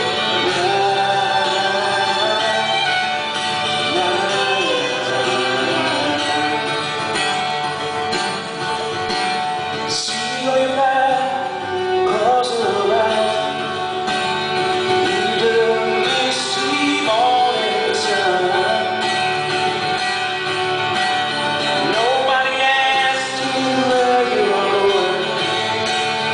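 Live band music: a man singing a song over guitar and other instruments.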